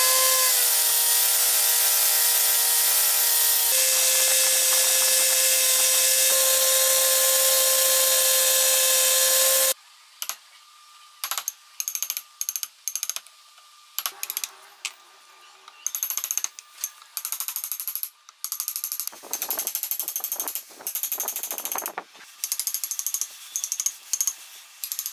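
An electric power tool's motor running steadily under load for about ten seconds, its pitch dipping slightly just after the start and stepping up a little around four seconds in, then stopping abruptly. After that come short, irregular bursts of tool noise on the workpiece.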